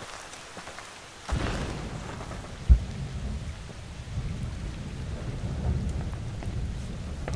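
Steady rain hiss, with a deep rumble that sets in suddenly about a second in and runs on, and one heavy boom about a second after that.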